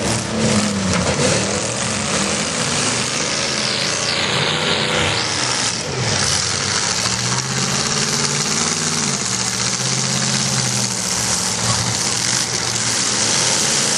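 Demolition derby car engines running and revving, their pitch rising and falling.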